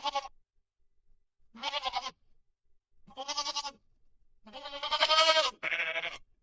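Goat bleating: about five separate wavering bleats with short silences between them, the longest and loudest about five seconds in.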